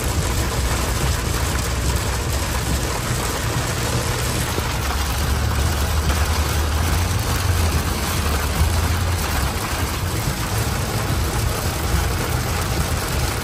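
Heavy rain pelting a pickup truck's roof and windshield, heard from inside the cab as a steady loud hiss over the low rumble of the running engine.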